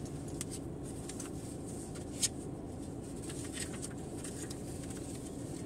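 Steady low rumble inside a car's cabin while it sits idling, with a few faint clicks and rustles and one sharper click about two seconds in.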